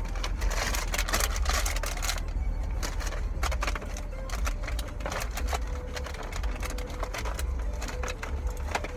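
Irregular clicking and crinkling of plastic toys and packaging from an Easter basket being handled, over a low steady rumble.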